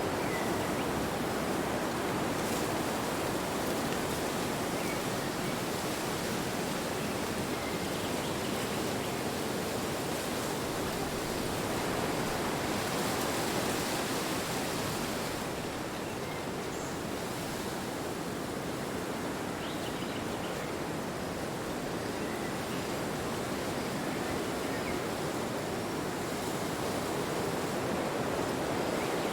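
Steady wind blowing: a continuous rushing noise that swells and eases gently.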